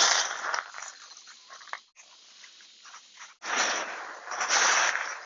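Expanded clay pebbles (Hydroton) rattling and crunching as hands dig into them to plant seedlings, in two loud bursts of rustling with a quieter stretch between.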